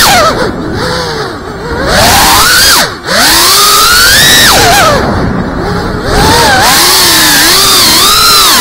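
Brushless motors and propellers of a GEPRC FPV quadcopter whining, heard from its onboard camera. The pitch rises and falls constantly with throttle, and the sound drops back twice as the throttle is eased, about half a second to two seconds in and again around five to six seconds in, with a short dip near three seconds.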